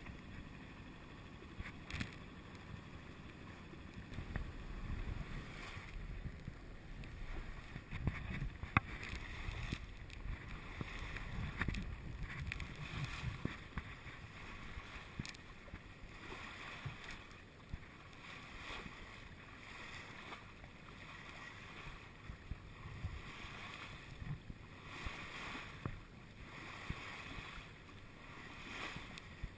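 Water washing and splashing along the hull of a moving sailboat, with wind buffeting the microphone.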